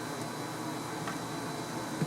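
Steady background hiss and hum with a faint thin high tone running through it, and a faint click about a second in.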